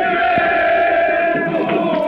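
Many men's voices chanting and calling out together, holding long notes, with a few calls sliding in pitch near the end.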